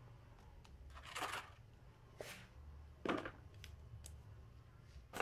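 Four short scuffing, rubbing sounds about a second apart as a motorcycle wheel is handled and turned over on a concrete floor.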